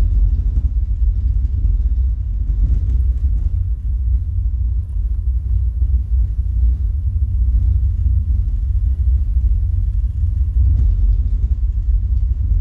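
Deep, steady bass rumble from a live electronic music set, with no melody over it.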